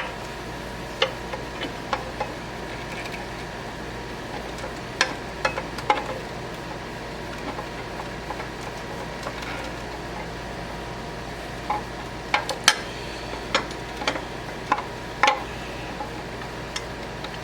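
Small sharp clicks and taps, irregular and spread out, more of them in the second half, as wire connectors and the spindle encoder circuit board inside a wood lathe's headstock are handled and unplugged, over a steady background hum.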